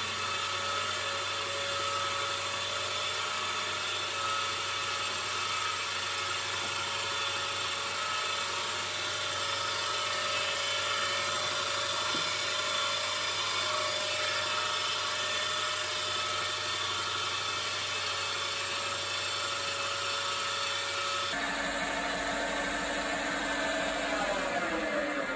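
Wood lathe running steadily with a motor whine as it spins a small wooden tool handle. The whine changes abruptly about 21 seconds in, and near the end it falls in pitch as the lathe spins down.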